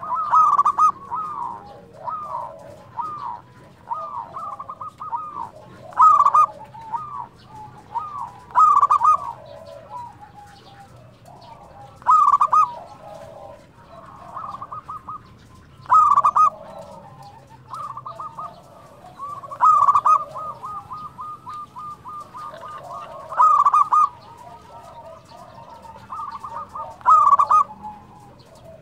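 Local zebra doves (perkutut) cooing in overlapping, repeated phrases, with a louder phrase rising out of the chorus about every three to four seconds.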